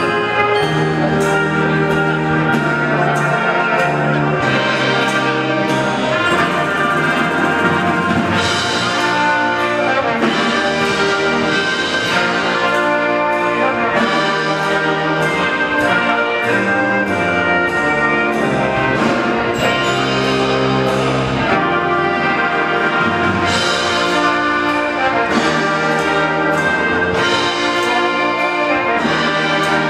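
Military brass band playing sustained brass chords and melody over a steady beat, in a large reverberant hall.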